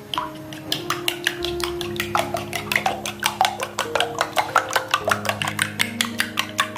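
A steel spoon beating raw eggs in a cut-glass bowl, the spoon clicking against the glass about four or five times a second, over soft background music with held notes.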